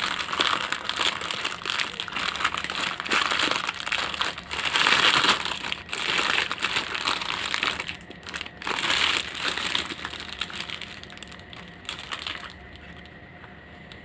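Plastic packaging crinkling and rustling as it is handled and opened, in irregular bursts that die down about twelve seconds in.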